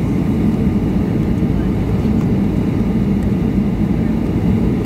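Steady cabin noise inside a Boeing 757-200 on its landing approach: the even drone of its Rolls-Royce RB211-535E4B engines and the airflow, heaviest in the low range with a strong low hum.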